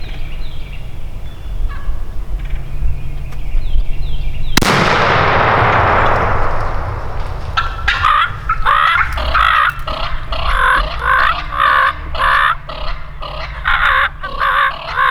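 Shotgun blast about four and a half seconds in, two hunters firing at the same instant, with a long echo fading over a couple of seconds. Then wild turkeys calling loudly in quick repeated notes, about two a second.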